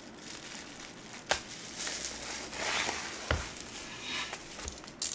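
Plastic bubble wrap crinkling and rustling as it is pulled off a vinyl LP in a cardboard mailer, with a few sharp clicks and one low thump a little after three seconds in.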